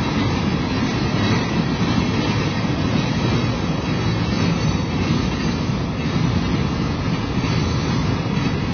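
Freight train of loaded flatcars rolling past at steady speed: a continuous low noise of steel wheels on the rails.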